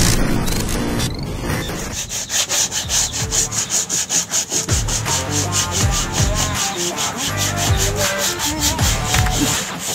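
Hand-sanding a motorcycle under-fender with P100 sandpaper: quick, even back-and-forth rubbing strokes, about five a second, starting about two seconds in.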